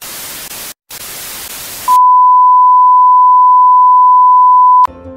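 Television static sound effect: a hiss of white noise in two bursts with a brief gap, then a loud, steady, pure-tone beep held for about three seconds and cut off sharply.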